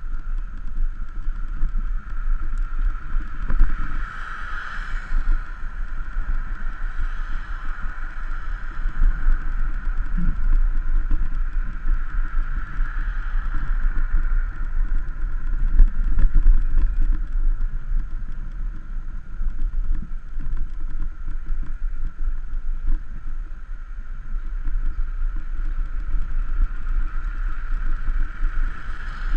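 Wind buffeting and road rumble on a bicycle-mounted camera's microphone while riding along a street, with a steady hiss. Cars pass, swelling the noise about four seconds in and again around thirteen seconds.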